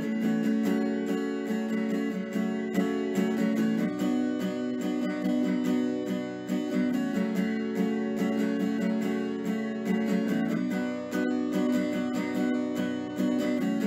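Background music: strummed acoustic guitar, played in a steady rhythm.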